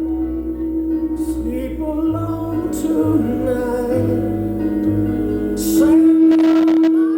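Live band music with sustained chords, a bass line changing notes about once a second and a singing voice, swelling louder with a noisy wash near the end.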